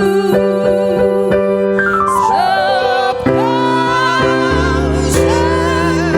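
A singer's voice with vibrato, carrying a slow melody over electronic keyboard accompaniment with held chords and bass notes.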